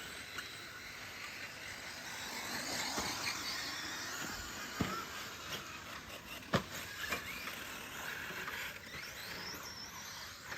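Electric 1/10-scale 4x4 RC short course trucks racing on a dirt track: high motor whine rising and falling as they speed up and slow, over tyre noise, with a few sharp knocks, the loudest about six and a half seconds in.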